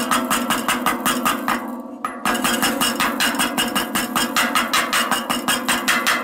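Rapid light hammer taps, about seven a second, metal on metal, as a small hammer drives the bearing retaining ring down into the hub shell of a Sturmey-Archer AW three-speed hub, with a brief pause about one and a half seconds in. A steady low hum runs underneath.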